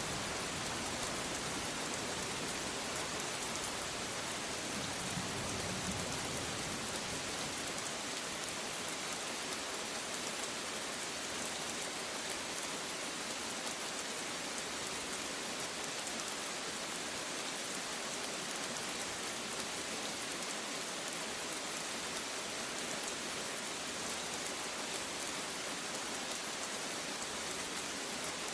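Steady rain falling in an even hiss, with the low tail of a thunder rumble dying away over the first few seconds.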